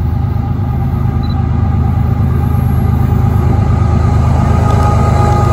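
CN diesel-electric freight locomotive approaching with its train, its engine running steadily and getting gradually louder as it nears, with a faint steady whine above the engine sound.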